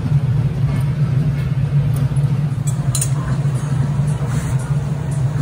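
Steady low roar of glass-studio burners and blowers (furnace and glory hole), with a couple of light clicks of steel tools against the glass near the middle.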